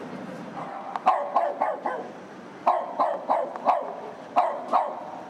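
Small dog barking: about ten sharp yaps in three quick bursts of three to four.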